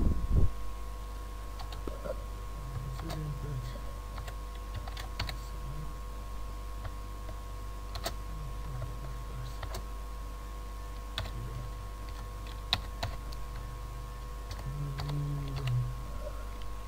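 Computer keyboard typing: scattered key clicks over a steady electrical hum, with a low thump right at the start.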